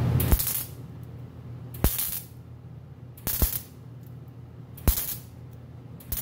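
MIG welder arc in short stop-start bursts, building up a blown-off corner of a sprocket at turned-down amps. About five half-second bursts, roughly one every second and a half, each starting with a sharp pop.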